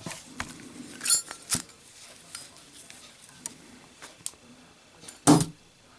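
Brass-case Zippo windproof lighter: a few sharp metallic clicks and a ringing clink in the first two seconds, then one loud knock about five seconds in as the lit lighter is dropped for a drop test.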